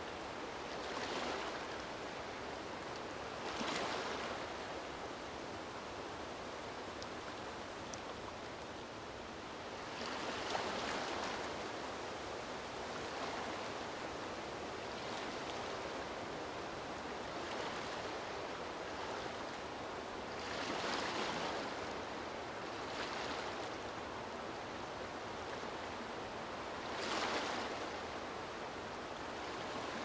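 Gentle lagoon waves lapping at the shore: a steady wash of water that swells briefly at irregular moments a few seconds apart.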